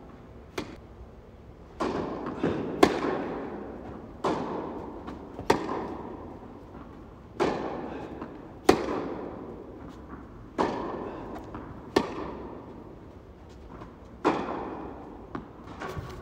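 Tennis rally in an indoor hall: sharp pops of rackets striking the ball, with ball bounces in between, about one every second or so. Each hit echoes and rings out in the large hall, the loudest being the near player's strokes.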